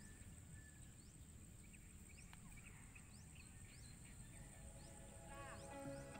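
Near silence: faint riverside ambience with a steady high hum, short high chirps and a low rumble. Soft background music comes in about four seconds in.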